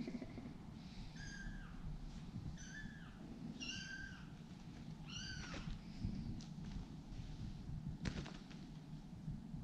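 Kittens meowing: four short, high-pitched meows about a second apart, followed by a few soft taps.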